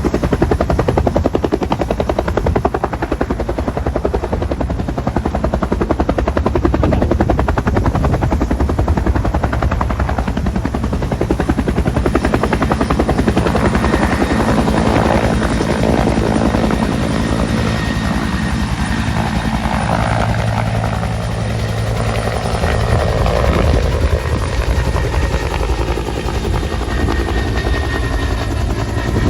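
Bell 212 helicopter running loud, its main rotor beating rapidly over the twin-turbine whine. From about halfway through, the pitch slides downward as the helicopter moves off.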